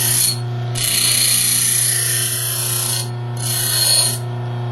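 Bench grinder running steadily while a steel hacksaw-blade pick blank is pressed against the wheel in three passes: one ending just after the start, a long pass of about two seconds, and a short one near the end, each a harsh high grinding hiss over the motor's hum.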